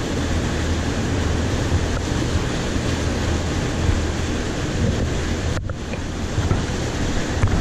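Wind buffeting the microphone over a steady low rumble, with a brief drop-out about five and a half seconds in.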